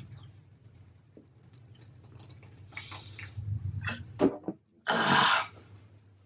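A person drinking from a glass bottle, with faint swallowing sounds, then a loud breathy exhale lasting about half a second, about five seconds in.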